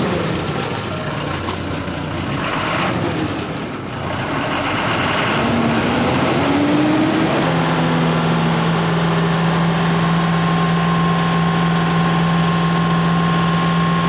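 Ashok Leyland bus diesel engine running just after start-up to build up the low air pressure that the air horn needs. About halfway through, a steady low tone comes in on top of it and holds without change.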